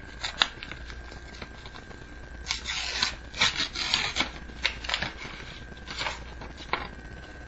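A homemade Pokémon card booster pack being opened by hand. There are a few sharp clicks, then a burst of rustling and tearing of the wrapper a couple of seconds in, followed by scattered taps and scrapes as the cards are handled.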